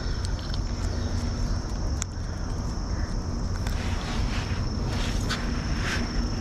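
Steady outdoor ambience: a low rumble and hiss with a constant high-pitched tone over it, and a few faint clicks.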